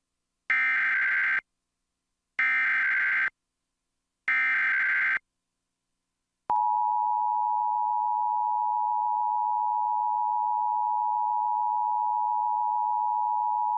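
Emergency Alert System broadcast for a tornado warning: three bursts of the SAME digital header, each a buzzing data tone about a second long, a second apart. About six and a half seconds in comes the two-tone EAS attention signal, held steady.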